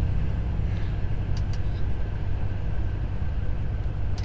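Truck driving at road speed, heard from inside the cab: a steady low engine and road rumble, with a few faint ticks.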